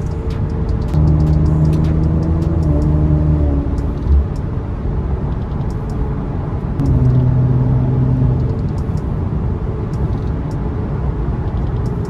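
Infiniti Q50 driving, heard from inside the car: a steady engine and road rumble, with a low humming note that grows louder twice, about a second in and again about seven seconds in.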